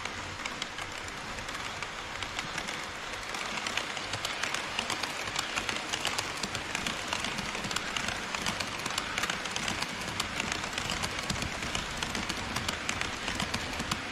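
HO-scale model trains running on plastic sectional track close to a track-level camera: a steady rattle of wheels and running gear with many rapid clicks at the rail joints, growing louder about three to four seconds in.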